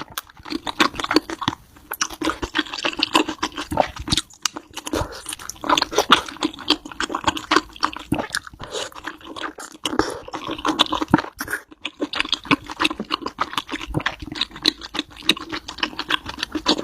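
A person chewing and crunching food close to the microphone, with dense, irregular crackles and mouth clicks, ASMR-style.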